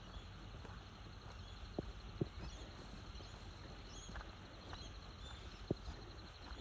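Footsteps on a bush track, a few soft irregular steps, with brief faint bird chirps and a steady high insect buzz behind them.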